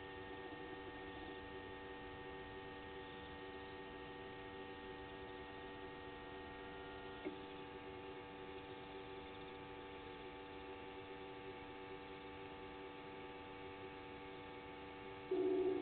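Steady electrical hum made of several constant tones, with one brief click about seven seconds in.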